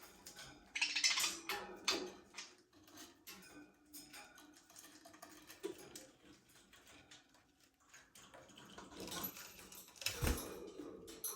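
Budgerigars chirping and chattering in short scratchy bursts mixed with small clicks, busiest about a second in and again near the end, where there is also a low thump.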